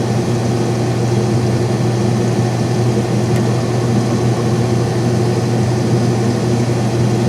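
Case IH 2188 combine running, heard from inside the cab: a steady, unchanging low drone of engine and machinery with a constant hum.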